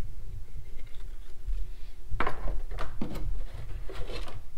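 Light handling noises on a wooden workbench: a few short knocks and rustles, about two, three and four seconds in, as a paper engine gasket and parts are moved around, over a steady low hum.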